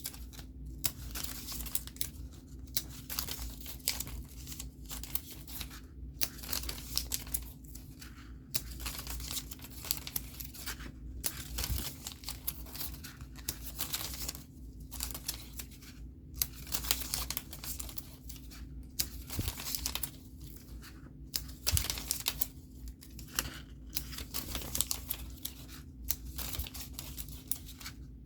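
Scratch-off stickers being peeled off their backing sheet and pressed onto paper pages, in short irregular bursts of peeling and paper rustling.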